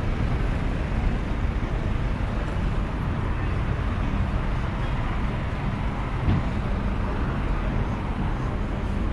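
Steady urban road traffic: a continuous low rumble of engines and tyres, with a short knock about six seconds in.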